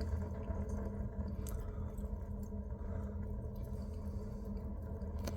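Wood stove fire burning behind its closed door, with a few faint crackles over a steady low hum.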